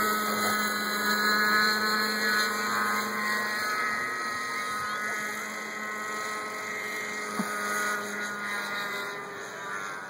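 Thunder Tiger Raptor 50 nitro RC helicopter flying high overhead: its glow engine and rotor buzz steadily, the pitch wavering slightly.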